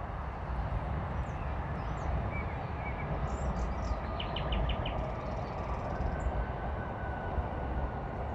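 Steady low outdoor rumble, with a few short bird chirps around the middle, including a quick run of about five.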